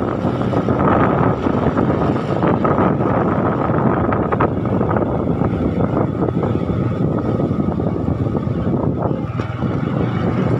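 Motorcycle engine running steadily while riding, mixed with wind rushing over the microphone.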